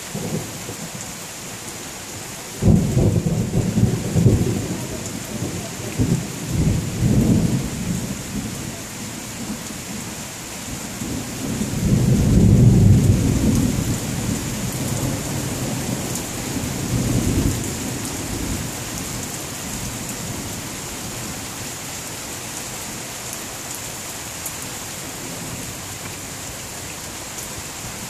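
Steady rain with a long roll of thunder. The thunder breaks suddenly about three seconds in and rumbles on and off, then swells again to its loudest near the middle and dies away about two-thirds of the way through.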